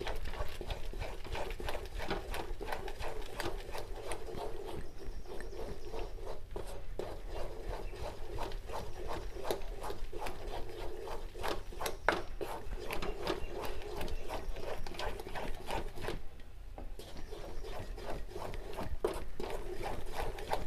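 Spatula scraping and knocking against a pan while stirring a thick, sticky milk-powder and coconut-milk mixture: a quick, irregular run of scrapes and taps.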